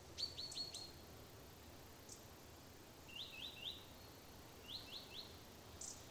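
A songbird calling in three short runs of quick down-slurred notes, four notes in the first run and three in each of the others, over a faint steady low background noise.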